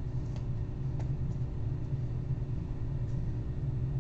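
Steady low background hum with a few faint light ticks, about a third of a second in, at one second and just after three seconds.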